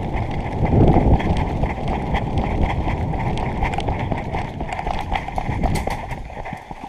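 Running footsteps, with a steady rumble and many small rattling clicks from gear and the body-worn camera's microphone, loudest about a second in.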